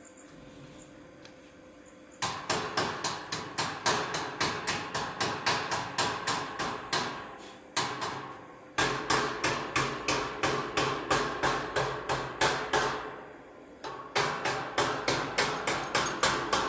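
A hammer striking metal rapidly and evenly, about three to four blows a second, in three runs with short pauses between.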